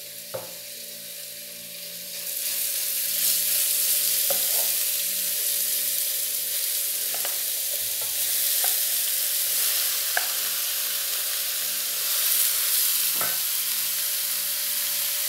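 Raw ground beef sizzling in hot oil in an electric skillet as it is seared, the sizzle swelling about two seconds in as more meat goes into the pan. A few light taps and scrapes of the spoon and wooden spatula against the bowl and pan.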